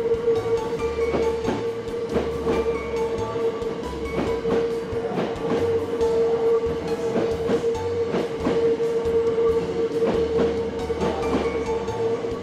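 Background music with a steady beat and a held tone, over the sound of a Hankyu 9000 series electric train passing through a station.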